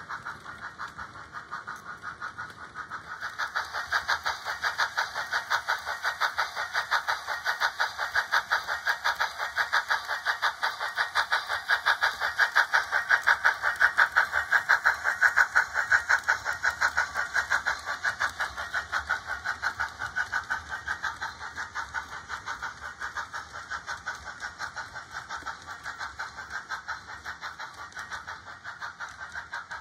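Model steam locomotive sound: rapid, even exhaust chuffs from a DCC sound decoder in a Hornby OO-gauge steam engine, played through its small onboard speaker. The chuffing swells as the train runs close by, is loudest midway, then fades again.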